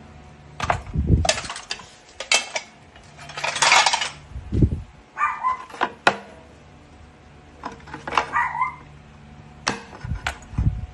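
Irregular clinks, clatter and knocks of small hard objects being handled, with a few deeper thumps.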